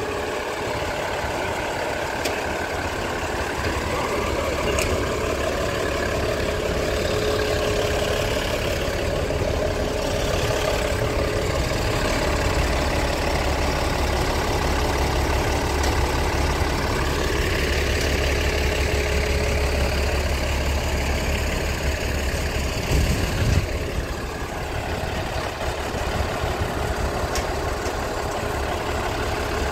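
Diesel engine of the DR2303 passenger railcar idling steadily while the car stands. Its low rumble grows louder for about ten seconds midway, and there is a brief louder jolt near the end.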